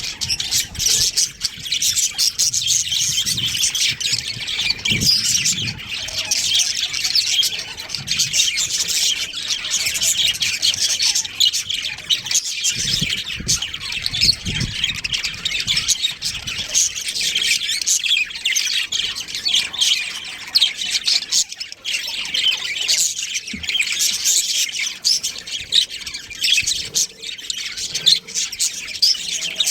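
Pet budgerigars chirping and chattering nonstop, many quick overlapping calls.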